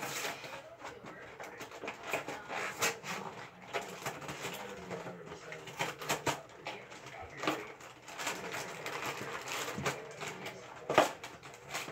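Scattered clicks and knocks of things being handled, with a faint low hum for a couple of seconds around the middle.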